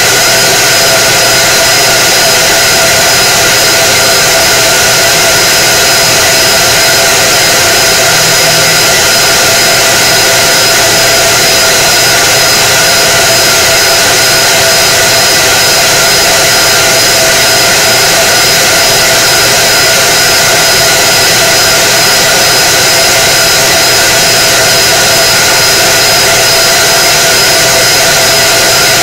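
K-40 CO2 laser cutter running an engraving job on a turning cup: a loud, steady blower-like whir with several steady tones over it.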